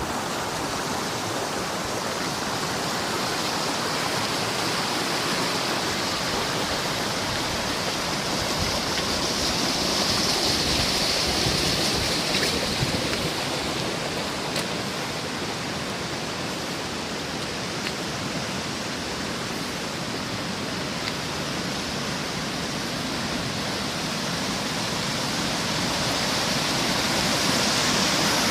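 Steady rush of running water, swelling slightly about ten seconds in.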